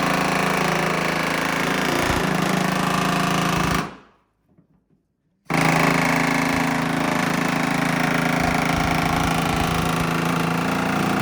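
Pneumatic air hammer running in two long bursts against a dented steel rear quarter panel from the inside, working the dent back out. It stops about four seconds in and starts again a second and a half later.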